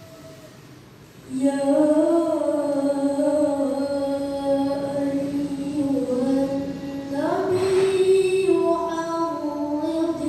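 A child's voice reciting the Quran in the melodic tilawah style: long held notes with slow ornamented turns, starting about a second in and stepping up in pitch partway through.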